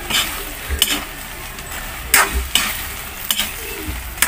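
Shrimp frying in butter in a metal wok, sizzling steadily, while a long-handled spatula stirs them with irregular knocks and scrapes against the pan.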